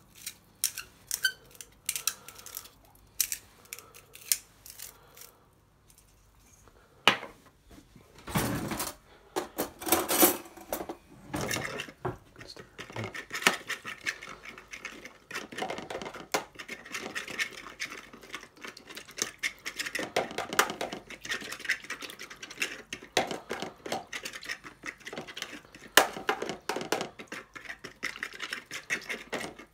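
A few separate clicks as pink rock salt goes into the marinade. Then, from about twelve seconds in, a fork stirs the liquid marinade in a plastic container, making steady, rapid clicking and scraping against the sides and bottom.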